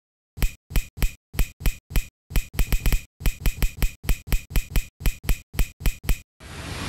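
Logo-animation sound effects: a quick, irregular series of about two dozen short, sharp snappy pops, each with a deep thump under it, then a whoosh swelling up near the end.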